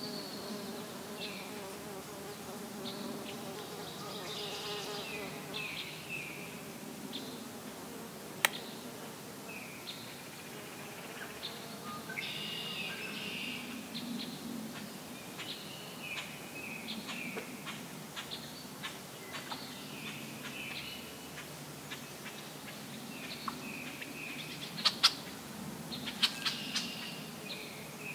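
An insect buzzing in flight, a steady wavering hum, with a small bird giving repeated short chirps that fall in pitch. A few sharp clicks stand out, one about eight seconds in and several close together near the end.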